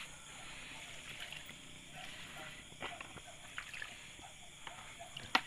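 Scattered light clicks and knocks with a little water sloshing as a bucket of freshly caught live fish is handled over a wire-mesh basket, with a sharper click just before the end.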